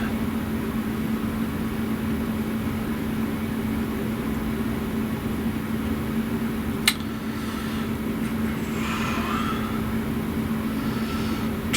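Steady background hum with a constant low tone, and one sharp click about seven seconds in.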